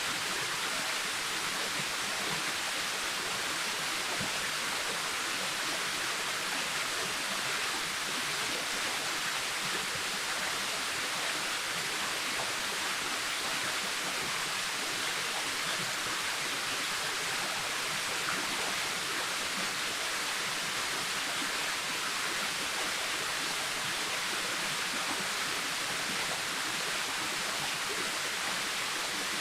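Waterfall: a steady rush of falling water, strongest in the hiss of the higher range, with no breaks or changes.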